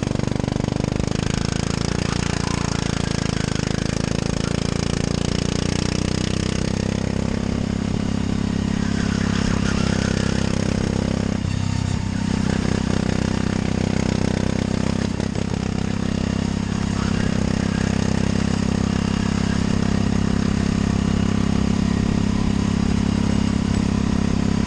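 13 HP go-kart engine running hard under throttle, a steady high-revving drone heard from on board the kart, dipping briefly twice about halfway through.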